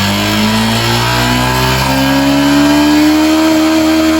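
Motorcycle engine revved up and held at steady high revs. The pitch climbs for about two seconds, then holds. The engine is being kept revved for a stator AC output test.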